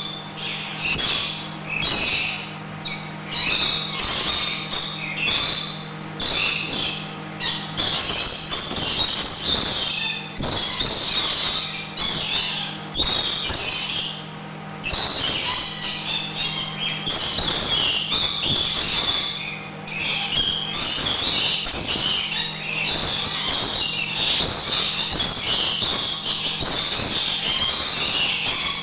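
Lorikeets calling shrilly, a squawking chatter of high-pitched calls that runs almost without a break, with short pauses, over a steady low hum.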